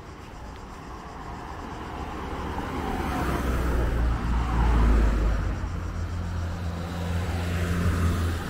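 A car driving past, its engine and tyre noise swelling to a peak about halfway through, with a steady low engine hum continuing near the end.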